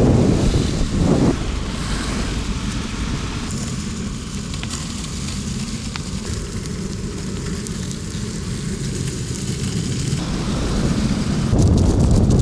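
Longboard urethane wheels rolling over asphalt, mixed with wind rushing on a fast-moving microphone: a steady low rush, louder in the first second and again near the end.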